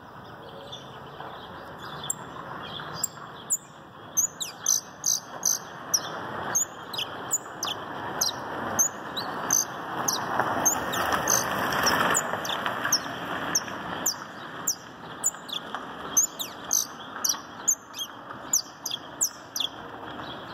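Canary singing: a long run of short, sharp, high chirps that fall quickly in pitch, delivered in rapid bursts, over a steady rushing background noise that swells in the middle.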